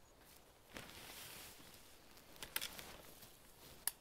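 Faint rustling of a tarp being lifted and handled as a pole is set under it, with a few light clicks a little past halfway and a sharp click near the end.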